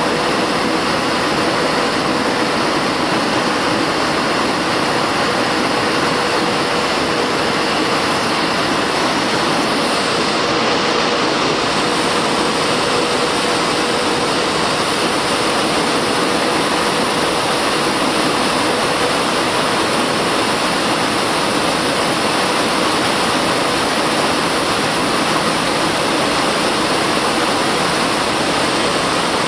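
Airbus A319 airliner on approach to land: a steady, loud rush of jet engine and airflow noise with a faint constant hum.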